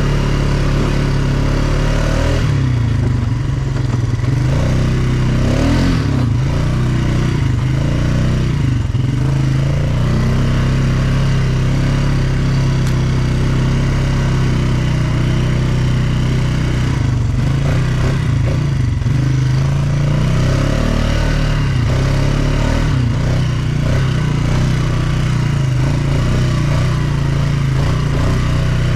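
ATV engine running while riding, a steady drone whose pitch rises and falls with the throttle several times, mostly in the first ten seconds and again about two-thirds of the way through.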